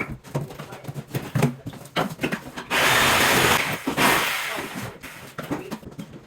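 A power tool runs in a loud burst of about a second, then fades out over the next second. Scattered knocks and clatter come before and after it.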